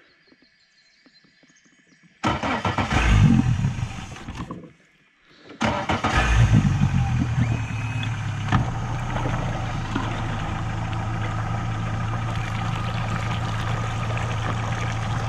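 Yamaha VMAX SHO 90 four-stroke outboard motor being started: it cranks and catches about two seconds in, then fades out. About three seconds later it starts again, revs briefly and settles into a steady idle.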